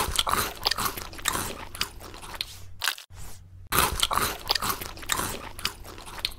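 Close-up ASMR eating sounds: crunchy biting and chewing of crisp food. They come in two bouts, split by a brief pause about three seconds in.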